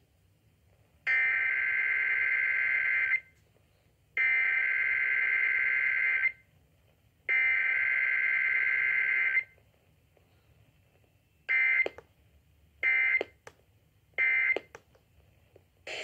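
Emergency Alert System SAME digital header played over an FM radio's speaker: three identical buzzy data bursts of about two seconds each, about a second apart, then three short end-of-message bursts. No attention tone sounds between them, as is usual for a Required Weekly Test.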